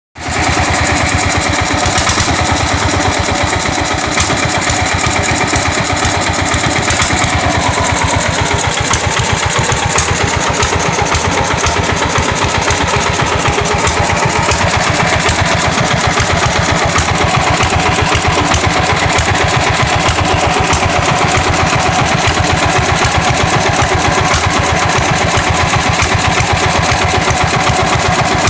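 10 HP single-cylinder stationary diesel engine running steadily, with a fast, even knock from its firing strokes.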